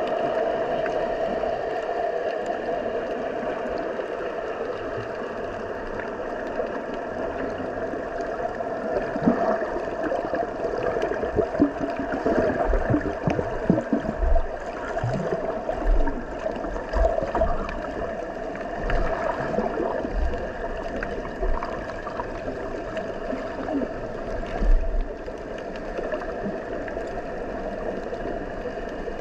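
Underwater ambience picked up by a GoPro Hero10 in its housing on the seabed: a steady droning hum over a wash of water noise. Irregular low thumps and swells come between about 9 and 25 seconds in.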